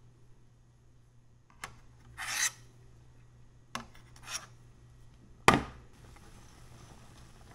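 Metal spoon scraping and knocking against a stainless steel pan while skimming the foam off boiling crab stock: two light taps each followed by a short scrape, then one sharp knock near the end, over a faint low hum.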